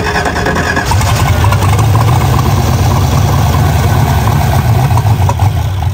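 Rover V8 engine swapped into a 1978 MGB running steadily just after its first start, on newly fitted ignition points whose dwell has not yet been set. The low rumble grows louder about a second in and cuts off suddenly at the end.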